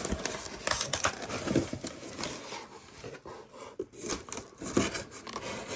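A cardboard shipping box being opened by hand, with irregular crinkling, crackling and tearing of cardboard and packing.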